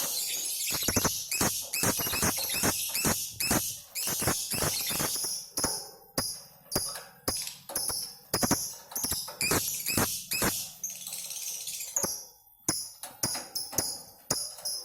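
Lovebirds chattering in long, shrill, rapid trills (the 'ngekek' song), with many sharp irregular clicks mixed in.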